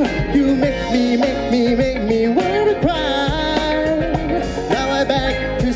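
A live band playing a pop song: a male singer's voice over electric bass, electric guitar and a drum kit.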